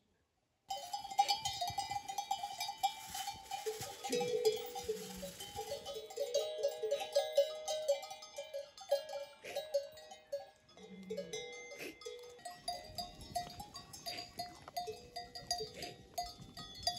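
Bells on a herd of cattle clanking and ringing, several bells at different pitches sounding on and off as the animals move, starting about a second in.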